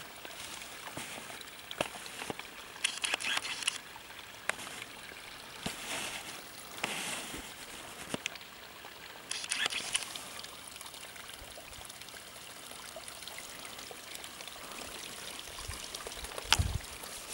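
A small rivulet of liquid waste trickling and splashing over rocks into a pool, a steady soft babble. Brief clicks and rustles come and go throughout, with a low thump about a second before the end.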